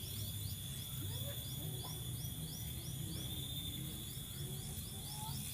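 Insects chirping in a steady rhythm, about three short chirps a second over a continuous high buzz, with a low rumble underneath.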